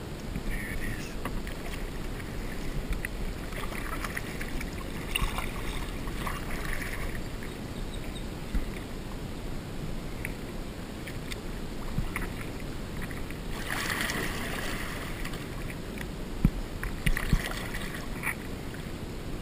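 Kayak paddle strokes splashing and dripping in shallow creek water, coming in several separate bursts, with a few sharp knocks toward the end.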